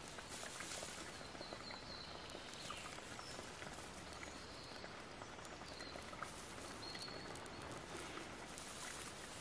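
A dry grass and bark tinder bundle rustling and crackling faintly as it is worked in the hands to nurse a flint-and-steel ember toward flame. Short, high bird chirps come now and then.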